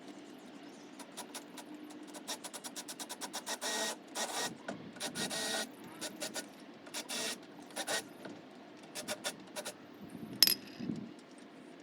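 Metal hand tools at work on a car's suspension: fast runs of mechanical clicking and short rattling bursts, with one sharp knock about ten seconds in.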